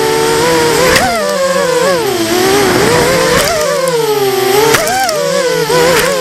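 Racing quadcopter's motors and propellers whining in flight, the pitch dipping and rising again and again as the throttle changes.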